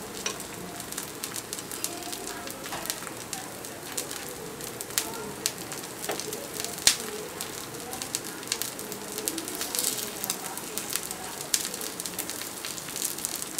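Paniyaram batter frying in oil in the cups of a paniyaram pan: a steady sizzle with frequent sharp crackles and pops of spitting oil.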